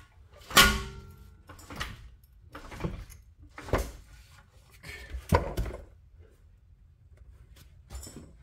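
Metal clanks and knocks from tools working on a car's front suspension, about one a second at uneven intervals. The first is the loudest and rings briefly like struck steel.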